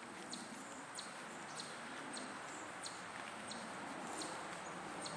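A short high chirp repeating evenly, about one and a half times a second, over a faint steady outdoor hiss.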